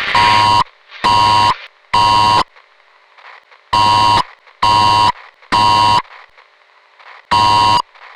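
Emergency-broadcast-style alert signal: harsh electronic buzzer blasts about half a second each, sounded in groups of three, with a longer pause between the groups.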